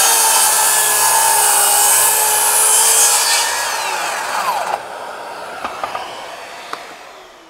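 Makita 36V (two 18V batteries) 9-1/4 inch brushless circular saw running at full speed while crosscutting a Douglas fir 4x4 near its full cutting depth, a steady whine with wood-cutting noise. About four seconds in the motor winds down quickly as its electric brake stops the blade, leaving the 4x4 not quite cut through. A fainter hum then fades away, with a few light clicks.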